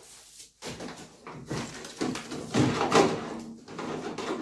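Plastic tool carrying case being handled on a workbench, with a run of rustles and hollow knocks as the case and its lid are moved, loudest about three seconds in.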